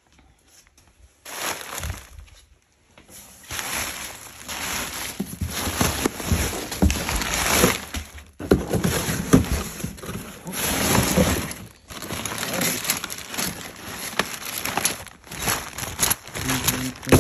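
Plastic packing bags, bubble wrap and crumpled packing paper crinkling and rustling while being handled in a cardboard box, starting about a second in, with many small irregular crackles.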